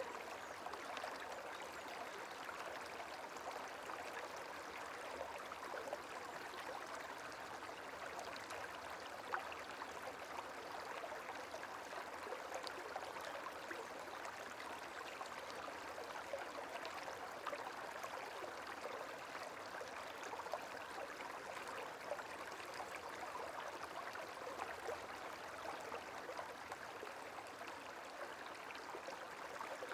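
Gentle running water: a steady, even babble like a small stream, with no changes.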